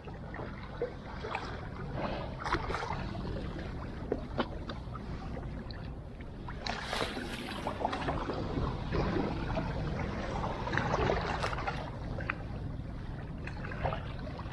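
Sea water lapping and splashing at the shore, with scattered small splashes and a louder rush of water about seven seconds in, over a steady low rumble.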